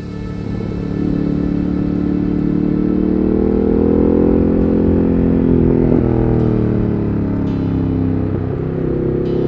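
Ducati Monster 1200S's 1198 cc L-twin engine heard onboard while riding, its pitch climbing under throttle, dropping as the rider eases off around the middle, then climbing again near the end.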